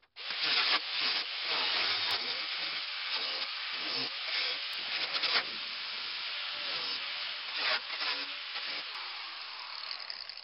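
Angle grinder with a thin cut-off wheel cutting through the steel shell of a well-water pressure tank: it starts suddenly and keeps up a steady, noisy grinding with small swells in level.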